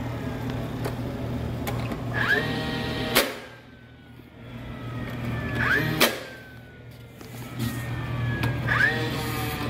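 DeWalt 20V brushless cordless 18-gauge brad nailer driving brads into door casing. Its motor whines up, then fires with a sharp crack, twice about three seconds apart, and winds down after each shot. The whine rises again near the end.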